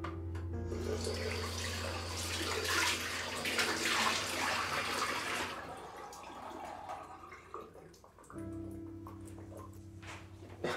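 Water from a bathroom sink tap running into the basin for about five seconds, then stopping, over soft background music.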